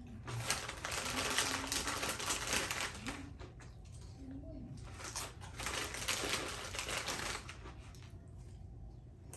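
Close-up chewing of food, a dense run of crisp, crunchy clicks coming in two spells with a quieter pause between them.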